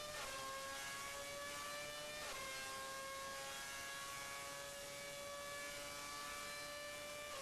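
Renault Formula 1 engine running on a dynamometer, held at high revs with a steady, high pitch. The revs dip briefly just after the start and again about two seconds in, then hold.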